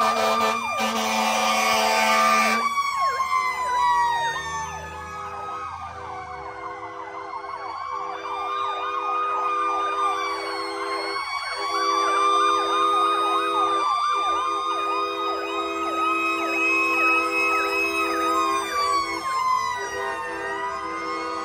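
Several fire truck sirens sounding at once: slow rising-and-falling wails overlaid with fast warbling sweeps. A loud horn-like blare of steady tones sounds for the first couple of seconds, and a lower steady tone runs underneath in long stretches with brief breaks.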